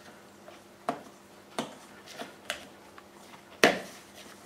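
Hands pressing pastry dough together in a stainless steel mixing bowl: a handful of irregular light knocks and taps from the metal bowl, the sharpest one about three and a half seconds in.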